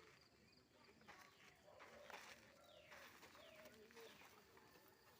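Faint bird calls: low, repeated arching notes mixed with several quick falling whistles, over a quiet hiss.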